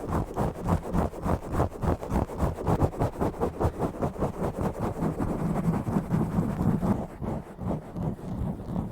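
Fast, rhythmic scratching and rubbing directly on a bare microphone, several strokes a second. The sound is dull and bassy, and the strokes become a little less regular about five seconds in.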